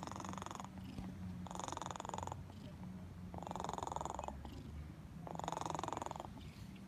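Snoring in even breaths, about one every two seconds, each breath with a fine rapid flutter.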